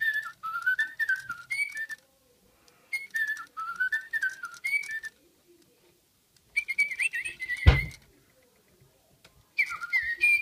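Little Live Pets toy bird playing back a song as electronic chirping, a warbling whistle-like melody in phrases of about two seconds with short pauses between. A single bump sounds about three-quarters of the way through.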